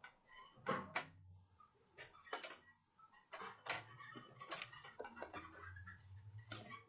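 Faint, irregular clicks and knocks, a dozen or so spread unevenly, over a low steady hum.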